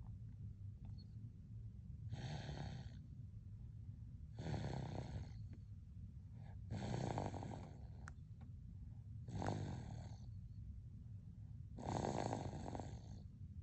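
An eight-month-old baby snoring in her sleep: five snores about two and a half seconds apart, over a steady low hum.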